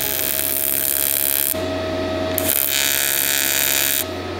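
AC TIG welding arc on aluminium sheet, buzzing and hissing in two runs of about one and a half seconds each with a break of about a second between them.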